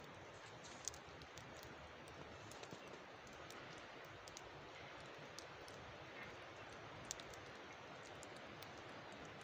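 Faint, steady outdoor hiss with light ticks and clicks scattered irregularly through it, two of them a little sharper, about a second in and near three-quarters of the way through.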